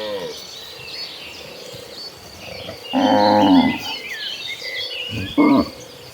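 Cattle mooing: one moo trails off at the start, a loud drawn-out moo comes about three seconds in, and a short one follows about five and a half seconds in.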